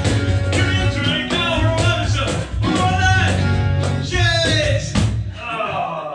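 Live acoustic trio playing: a man sings over a strummed acoustic guitar, with a plucked upright double bass and a cajon beaten by hand keeping a steady beat.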